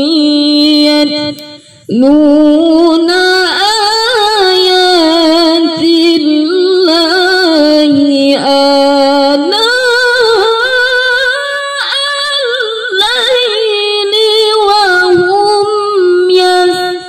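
A woman reciting the Quran in melodic, ornamented tilawah style: after a short breath about a second and a half in, she holds one long phrase with wavering, decorated pitch, breaking off just at the end.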